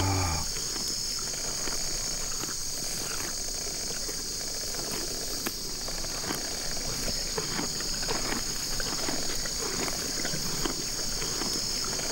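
Pony tearing and chewing grass: repeated crisp, irregular crunching and ripping bites. Under it runs a steady high chirring of insects.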